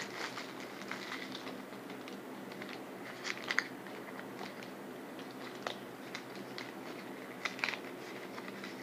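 Scattered crinkles and clicks of a plastic Shopkins blind bag being handled and worked open by hand.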